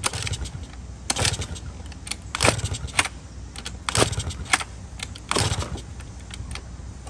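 Honda Spree's 49cc two-stroke scooter engine being kick-started, the kick lever clanking about once a second as the engine turns over without firing. The rebuilt carburetor is still empty of fuel.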